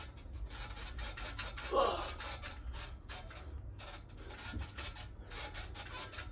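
Rough rubbing and scraping noise that comes and goes in short stretches, from a man doing weighted dips on a home dip station with a 25-pound plate hung from a dip belt, with a short grunt about two seconds in.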